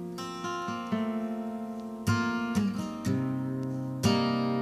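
Background music: acoustic guitar strumming chords, a new chord struck about once a second and left to ring.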